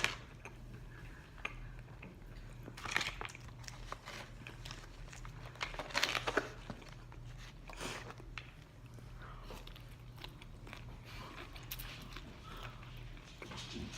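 Crunching and chewing of crispy Nashville hot fried chicken, coming in scattered bursts, over a low steady hum.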